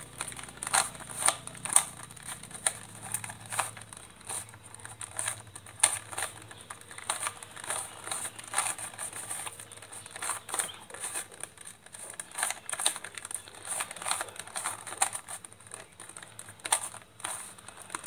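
Plastic 3x3x3 Rubik's cube being twisted by hand, its layers clicking and clattering several times a second in quick, uneven turns as the cube is scrambled.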